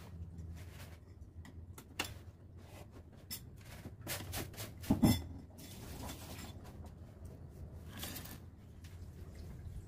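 Screwdriver clicks and light knocks on the plastic casing of a Reiwa window air conditioner as its bracket screws are taken out, with one louder knock about halfway through and a brief scrape near the end.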